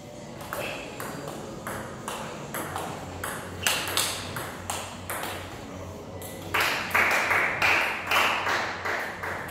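Table tennis rally: the ball clicks off the bats and the table in an irregular rhythm of sharp ticks. In the last few seconds there is a denser run of louder, quicker knocks.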